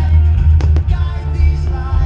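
Loud Disney film music with singing and heavy bass, played over the fireworks show's sound system. Two sharp cracks come just over half a second in.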